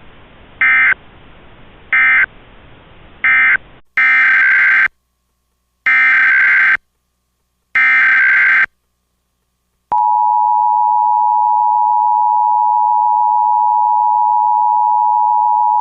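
Emergency Alert System tones: three short SAME data bursts about a second and a half apart (the end-of-message code), then three longer SAME header bursts of about a second each, also about two seconds apart. About ten seconds in, the steady two-tone EAS attention signal starts and holds.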